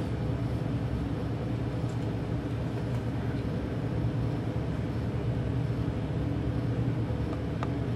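Steady low mechanical hum, even throughout, with a faint short tick near the end.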